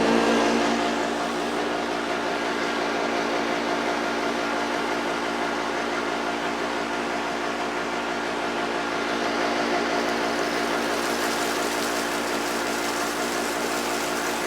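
Old Hoover Junior upright vacuum cleaner running steadily at full speed just after switch-on: an even motor hum with a rushing hiss of air, the hiss growing brighter in the last few seconds.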